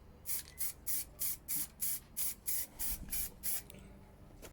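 Aerosol spray-paint can sprayed in a quick run of short bursts, about three a second, each a sharp hiss. The bursts stop about three and a half seconds in.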